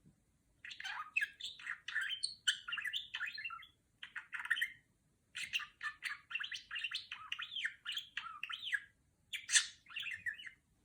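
Budgerigar chattering: fast warbling chirps in four runs with short pauses between them.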